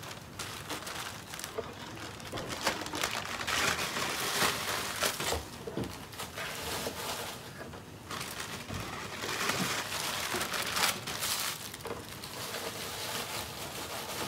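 Clear plastic bag of prefilled heparin flush syringes crinkling and rustling as it is handled and emptied, with irregular small plastic clicks as the syringes are put away in plastic drawers.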